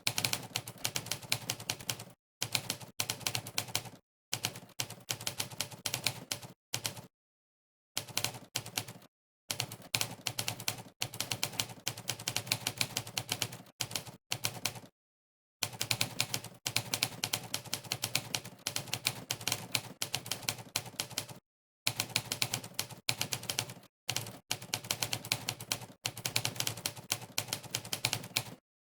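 Monkeytype's typewriter keystroke sound effect, one sharp clack per key pressed, in fast runs of typing broken several times by brief pauses of dead silence.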